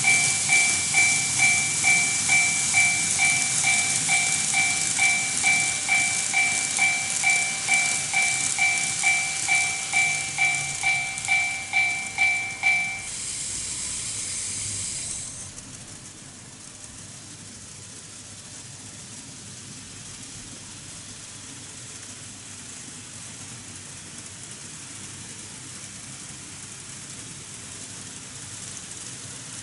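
TOMIX Automatic Level Crossing II on a model railway sounding its electronic warning bell, dinging about twice a second over the hissing run of a model train. The bell stops about 13 seconds in. The louder train noise drops away a couple of seconds later, leaving a faint steady running sound.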